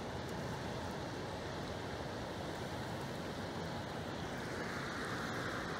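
Steady rushing of flowing river water, an even noise with no distinct events.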